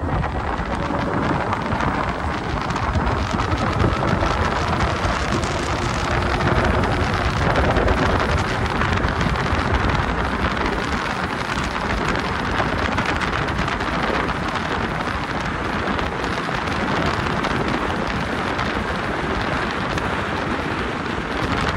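Steady rushing wind buffeting the microphone while riding an electric scooter at speed.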